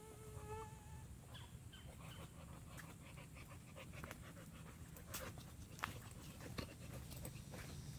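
A boxer dog gives a short wavering whine at the start, then pants, among scattered light clicks and crackles.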